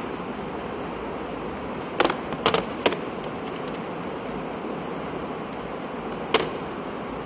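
Steady background noise with four sharp knocks: three in quick succession about two seconds in and one more a little past six seconds, typical of a phone being handled close to its microphone.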